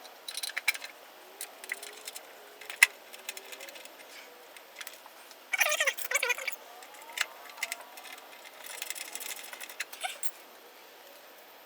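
Small metal hardware (bolts, washers and nuts) clinking and rattling as it is handled and the nuts are threaded on by hand, in irregular clicks with a louder clatter about six seconds in.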